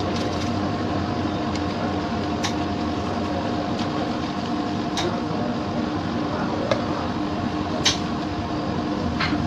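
Steady machine hum with a few sharp snaps a couple of seconds apart.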